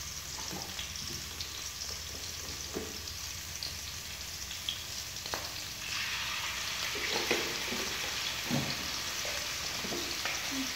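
Food sizzling in a wok on a portable gas stove, the sizzle growing louder about six seconds in as liquid is poured from a plastic jug into the hot pan, with a few light knocks and clatters.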